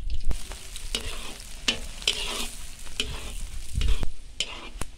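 Sliced onions sizzling as they fry in hot oil in a cast-iron kazan, softening and starting to brown. A metal skimmer scrapes and clicks against the pot again and again as the onions are stirred.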